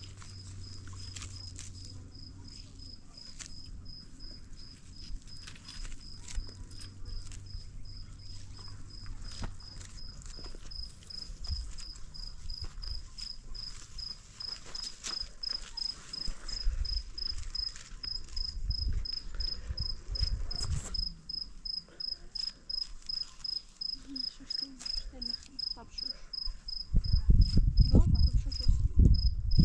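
A cricket chirping steadily at one high pitch, about two chirps a second, with scattered clicks and knocks. Near the end, loud low thuds and rumbling come in over it.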